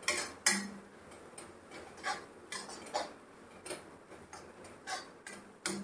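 A steel ladle scrapes and knocks against an aluminium kadhai while stirring tomatoes frying in a spice paste. The sharp clicks come irregularly, about one or two a second.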